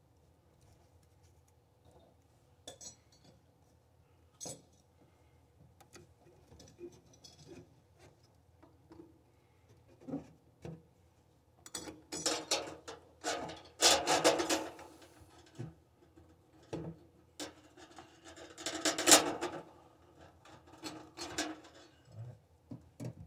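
Scattered clinks, taps and scrapes of tub drain-and-overflow parts being handled and fitted, with a few louder rubbing scrapes past the middle.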